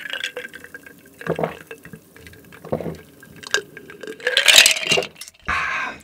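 A drink being gulped from a glass, close to the microphone: a few separate swallows, then a louder, longer rush of sound about four and a half seconds in.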